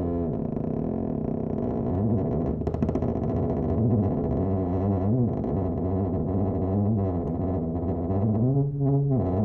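Creaky wooden door opened very slowly on its hinges: one long, unbroken creak whose low pitch rises and falls again and again.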